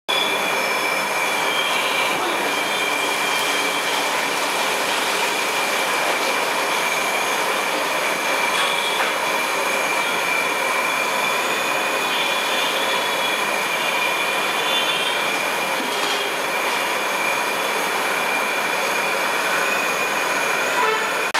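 Large aluminium pot of water heating on a stove burner: a steady hiss with a thin, high, constant whistle-like tone running through it.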